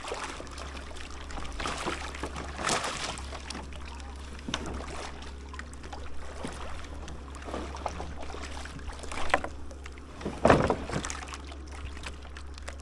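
Shallow sea water splashing and sloshing as a man wades around a bamboo raft and handles the lashing rope, in a few short, irregular bursts; the loudest splash comes about ten and a half seconds in.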